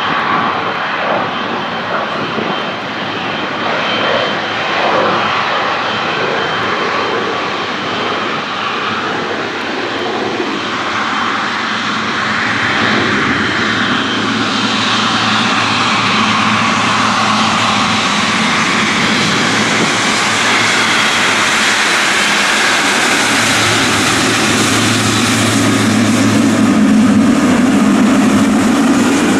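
Boeing 777 freighter's twin GE90 turbofan engines at taxi power: a steady jet rumble with a thin high whine, growing louder as the aircraft taxis up and passes close by.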